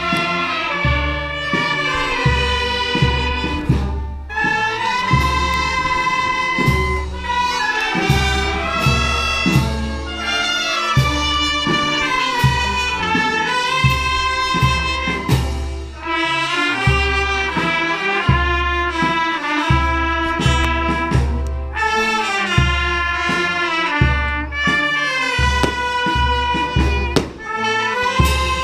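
A Maltese festa brass band plays a lively street march (marċ tal-briju): a trumpet-led brass melody over steady bass drum beats and frequent percussion strokes.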